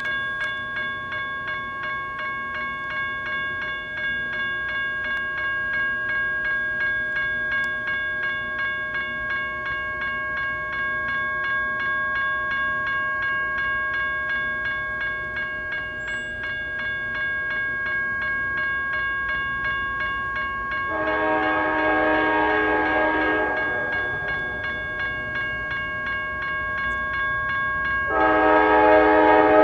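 Railroad grade-crossing bell dinging steadily and rapidly while a CSX freight locomotive approaches. The locomotive's air horn sounds one long blast of about two and a half seconds about 21 seconds in, then a second, louder blast starting near the end, as part of its crossing signal.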